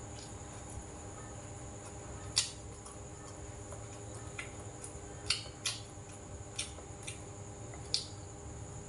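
Eating at a table: quiet chewing and wet mouth sounds, with about six sharp clicks of chopsticks and spoon, the loudest a couple of seconds in, over a steady hum.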